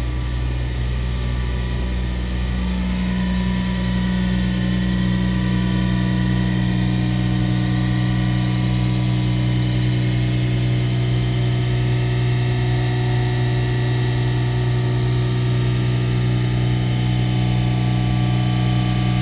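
Diamond-cut wheel lathe spinning an alloy wheel while its cutting tool skims the wheel face: a loud, steady machine hum with a deep low tone and fainter higher whines. A second, higher hum grows stronger about three seconds in.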